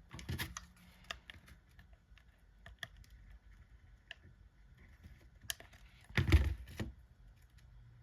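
Light clicks and taps of chipboard pieces being handled and pressed together on a tabletop, with a louder cluster of knocks and rustling about six seconds in.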